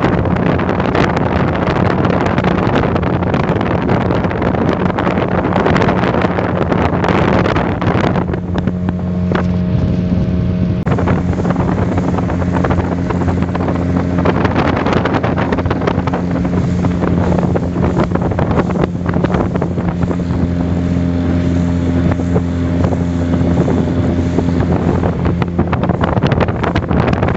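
Speedboat engine running at a steady cruise, its pitch holding even, with wind rushing over the microphone. The wind hiss eases for a few seconds about eight seconds in, then returns.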